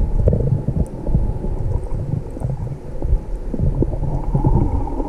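Muffled underwater rumble with irregular soft thumps as water moves against a submerged camera's waterproof housing. Everything sounds dull, with almost no high sounds.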